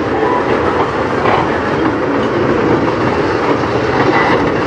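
Freight train of railway tank cars rolling past, its steel wheels on the rails making a steady, loud running noise with a few faint, brief squeals.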